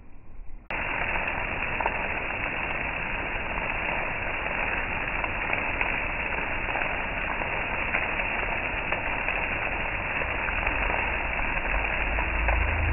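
Heavy rain during a thunderstorm, a steady even hiss that starts abruptly less than a second in.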